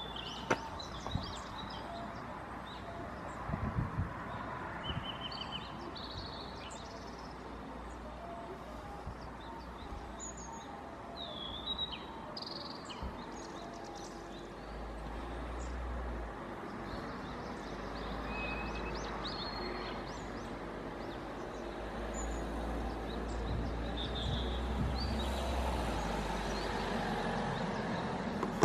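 Outdoor ambience: small birds chirping now and then over a steady hiss, with a low rumble that grows louder about halfway through.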